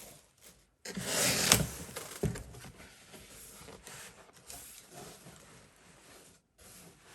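Cardboard box and packing material being handled: a burst of scraping and rustling with a sharp click about a second and a half in, then quieter rubbing and rustling.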